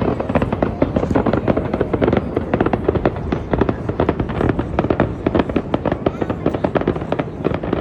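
Fireworks display: a dense, continuous barrage of rapid bangs and crackling, many bursts a second with no let-up.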